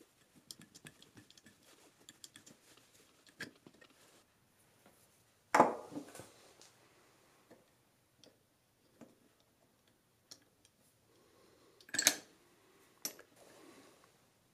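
Hand work on a mini mill's gearbox casting: a run of small metallic clicks and scrapes as the shifter-arm screw is turned out with a hand driver, then the shifter arm and shift fork are worked loose and lifted out. There is a loud metal clank about five and a half seconds in, and another about twelve seconds in, followed by a lighter one.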